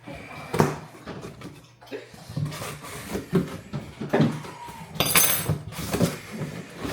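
Kitchen handling noises: a run of knocks and clatters of dishes and cupboard doors, with a louder, longer clatter about five seconds in.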